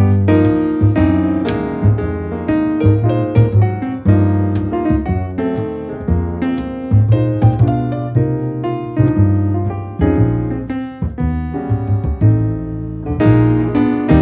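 Background piano music: struck notes and chords over a low bass line.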